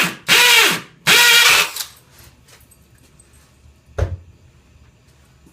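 Hammer drill boring into the mortar grout of a brick wall in short bursts during the first two seconds, its motor whine rising and falling with each trigger pull. A single knock about four seconds in.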